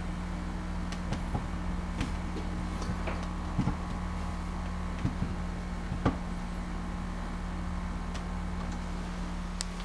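Scattered, irregular clicks and scrapes of a screwdriver turning the outlet extender's center mounting screw into the wall outlet, a screw that is starting to strip. A steady low hum runs underneath.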